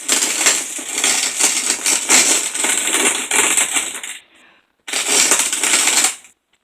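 Hand-cranked manual grain mill grinding hard dried popcorn kernels: a loud, gritty crunching rattle as the kernels are cracked between the burrs. It runs in two stretches, stopping briefly about four seconds in.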